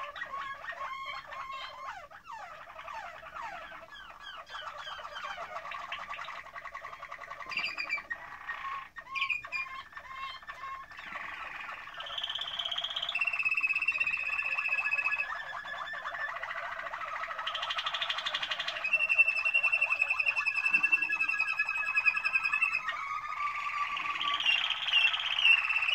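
Domestic canary singing a long continuous song: rapid trills and rolls at first, then long held whistled notes, louder in the second half.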